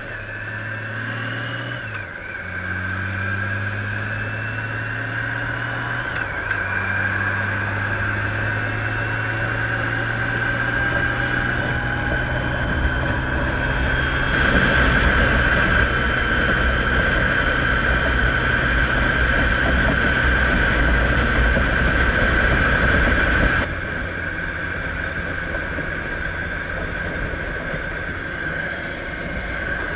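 Honda Gold Wing motorcycle engine accelerating through the gears, its pitch dropping at gear changes about two and six seconds in and then climbing slowly. A loud rush of wind on the microphone joins about halfway through and cuts off suddenly about three-quarters of the way in.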